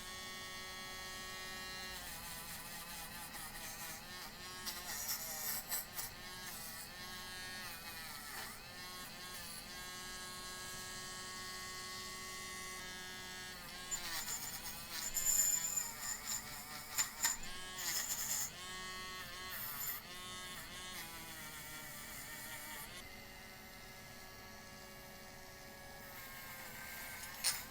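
Dremel rotary tool running at low speed, its motor whine dipping and rising in pitch as the bit is pressed against a die-cast metal model body to grind off old paint. Louder scratchy bursts come about halfway through.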